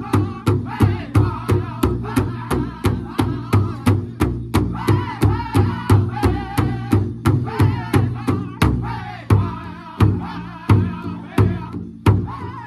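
A powwow drum group of several men striking a large rawhide drum in unison with padded sticks, about three beats a second, while singing together in high voices. In the last few seconds the beats come heavier and more widely spaced.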